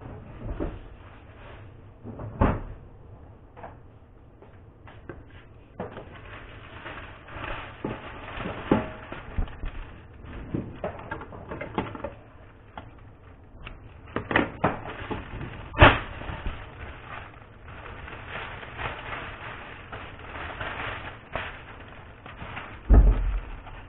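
Cellophane wrapping being handled: irregular crackling and rustling with scattered clicks and knocks, the sharpest knocks about two and a half and sixteen seconds in, and a low thud near the end.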